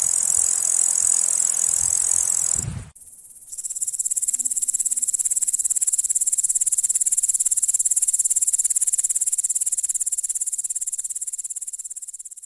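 Insects, crickets or katydids, singing: a steady high-pitched shrill that cuts off about three seconds in, then after a short pause a second, higher song made of rapid even pulses that goes on to the end.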